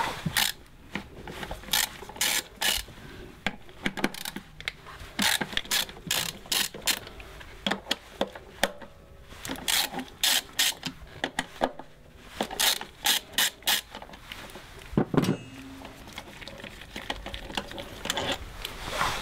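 Ratchet wrench with an E10 external-Torx socket clicking in repeated runs as the throttle-body bolts are undone, with short pauses between strokes and one louder knock about three quarters through. The bolts, coated with copper paste, turn out freely.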